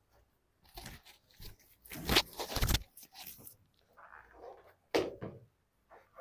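Rustling and shuffling of clothing and bodies moving, in several bursts, the longest and loudest about two seconds in and another sharp one near the end.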